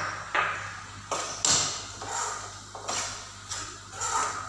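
Metal spoon stirring thick carrot halwa in a frying pan: repeated scrapes and light knocks of the spoon against the pan, roughly one or two a second, over a steady low hum.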